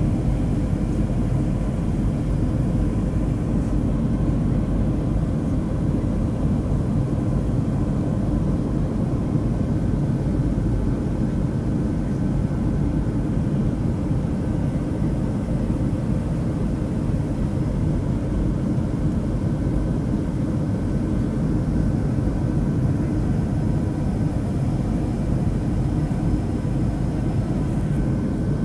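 Steady cabin noise of a Boeing 737 climbing after takeoff: a low, even roar of jet engines and airflow heard through the cabin, with a few faint steady tones above it.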